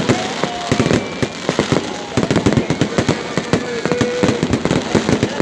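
Aerial fireworks shells bursting in a rapid, unbroken string of bangs and crackles, many reports a second.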